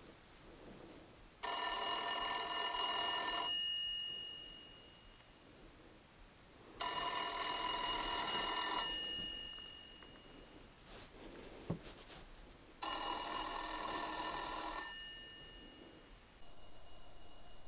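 A telephone bell ringing in three rings of about two seconds each, spaced roughly five to six seconds apart. There is a single faint click between the second and third rings.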